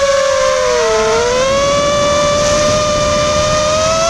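FPV racing drone's electric motors and propellers whining as one steady, high tone with overtones. The pitch dips briefly about a second in as the throttle eases, then climbs slowly as the throttle comes back up.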